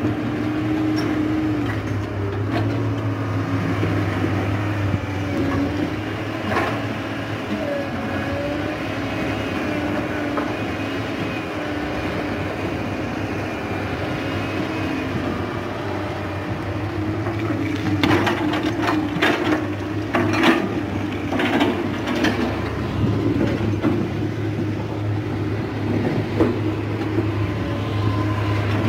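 Komatsu PC200 excavator's diesel engine running steadily under load as it digs. From about eighteen seconds in, a run of sharp clanks and knocks from the bucket and rock.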